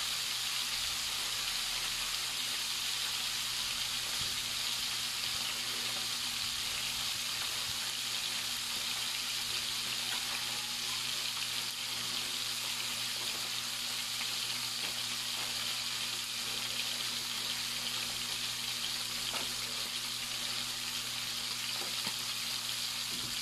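Salmon head pieces frying in hot oil in a pan: a steady sizzle, with a few small pops in the latter part.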